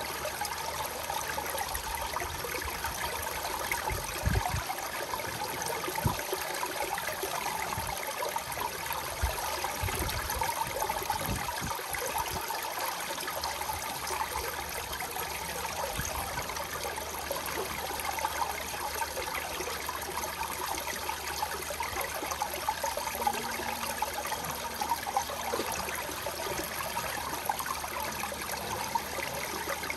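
Water trickling and splashing steadily down the face of a textured stone wall fountain onto pebbles and a slatted grate.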